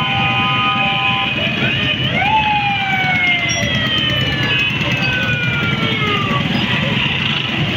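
Busy street traffic and crowd noise, with engines and voices mixed together. Over it run several siren tones: steady ones at first, then about two seconds in one rises sharply and slides slowly down, with another sliding down soon after.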